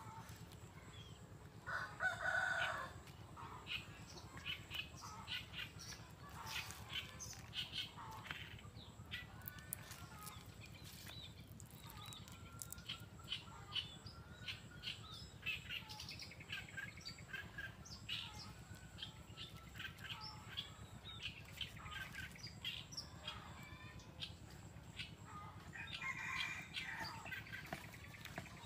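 Chickens and small birds calling: a loud call about two seconds in and another near the end, with many short chirps in between.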